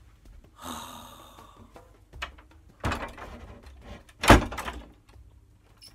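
Wooden front door being shut and its rim lock fastened by hand: a rustle, a few clicks and knocks, then one loud thunk a little past four seconds in, followed by small clicks.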